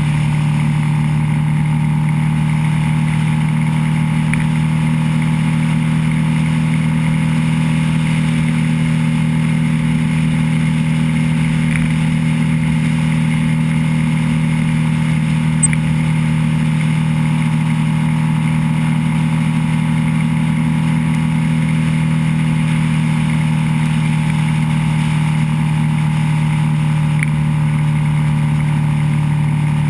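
Motorcycle engine heard from on board at a steady cruise, its note holding even, over road and wind noise.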